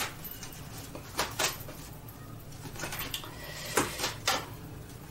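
A deck of tarot cards being shuffled by hand: short sharp flicks and taps of cards, a pair about a second in and more around three to four seconds, over a faint steady low hum.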